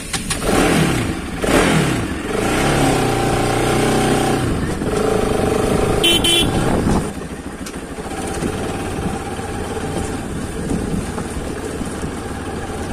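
Bajaj Pulsar RS200's single-cylinder engine running while the bike is ridden. The revs fall over the first couple of seconds, then hold steady, and the engine is quieter in the second half. A brief horn toot comes about halfway through.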